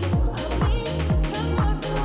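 Background electronic dance music with a steady kick drum about twice a second under a bass line and synth melody.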